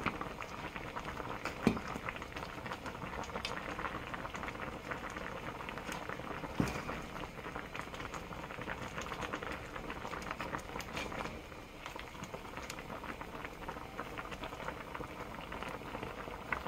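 Clam kalguksu broth boiling in a pot: a steady bubbling crackle. Two sharper knocks, about 2 and 7 seconds in, as the ladle touches the pot.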